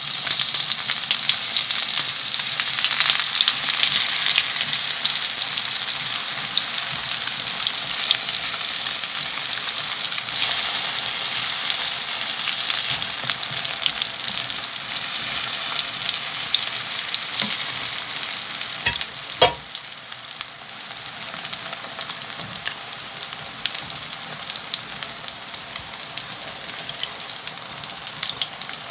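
Korean pancake batter frying in oil in a pan: a steady crackling sizzle. Two sharp knocks come about 19 seconds in, and the sizzle is a little quieter after them.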